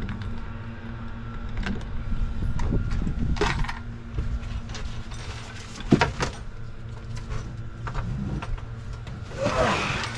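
Scattered knocks, rattles and thuds of handling on a fiberglass boat deck as a large catfish is picked up, with one sharp knock about six seconds in and a burst of rustling near the end. Underneath is the steady hum of a trolling motor holding the boat in place on Spot-Lock.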